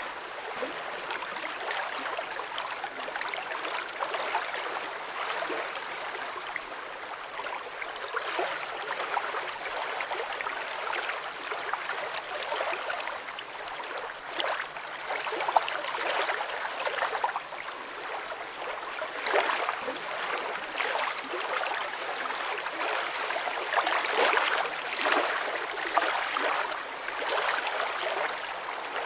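Flowing water gurgling and trickling steadily, with many small splashes in it.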